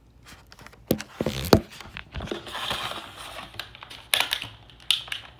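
Clear plastic blister tray crackling and clicking as a toy dinosaur figure is worked loose from it by hand. Irregular snaps, the loudest about one and a half seconds in.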